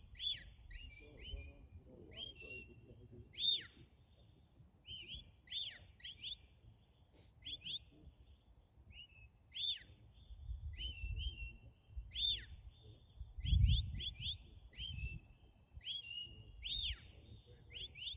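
A shepherd's whistle giving a rapid series of commands to a working sheepdog: short, sharp notes that rise and fall, some in quick pairs or triplets, with a few held notes in between. Wind buffets the microphone at times, hardest about three-quarters of the way through.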